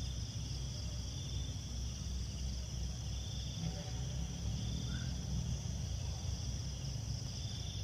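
Crickets and other night insects trilling steadily, with a low steady hum underneath and a few short chirps a little past the middle and near the end.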